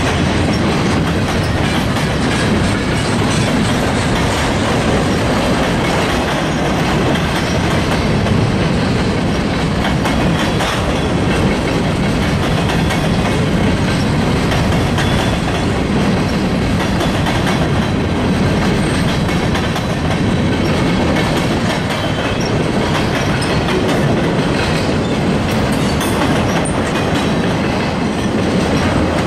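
Freight train cars rolling steadily past at close range, steel wheels running over the rail, loud and unbroken throughout.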